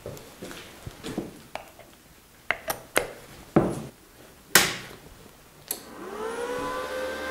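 Knocks and clicks of the Parkside PIFDS 120 A1 flux-core inverter welder being handled, the loudest about four and a half seconds in. A click near the end, then the welder's cooling fan spins up, its hum rising in pitch and settling into a steady whir.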